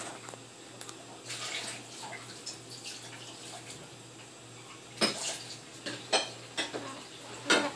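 Dishes being washed at a sink: splashing water, then a run of sharp clinks of dishes and cutlery in the second half, loudest about five seconds in and near the end.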